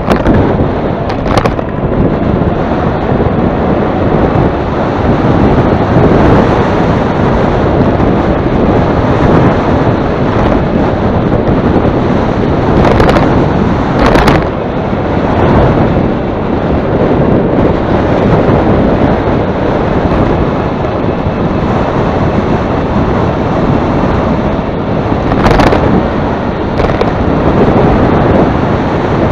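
Heavy wind buffeting the microphone: a loud, continuous rushing rumble, with a few brief sharper gusts.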